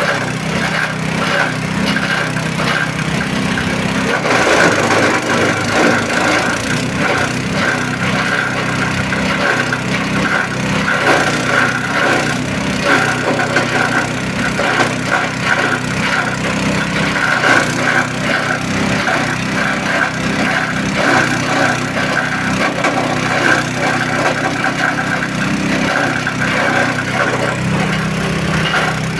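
Multifunction chopping and grinding machine running. Its steady motor hum gives way about four seconds in to a rough, crackling shredding noise as material is fed through the blades. The steady hum returns near the end.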